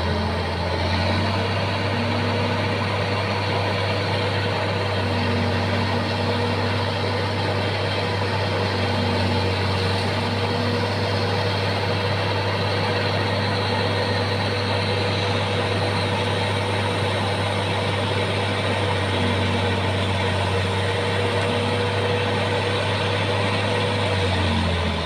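Bulldozer's diesel engine running steadily at raised revs under load while pulling a stuck log; the revs rise at the start and drop back near the end.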